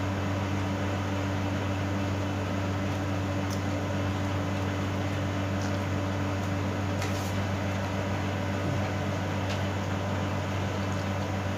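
Steady low electrical hum of a running room appliance, with a few faint clicks of food being handled and eaten.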